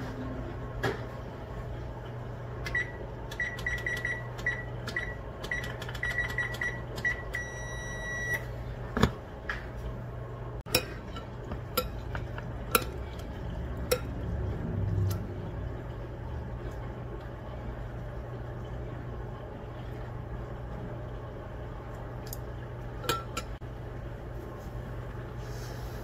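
Chopsticks and a metal spoon clinking several times against a ceramic bowl, over a steady low appliance hum. Before that, a run of short electronic beeps ends in one longer beep, like an appliance keypad being pressed.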